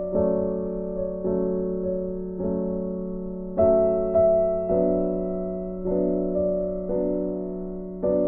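Background keyboard music: slow chords, each struck and left to fade, a new one about every second.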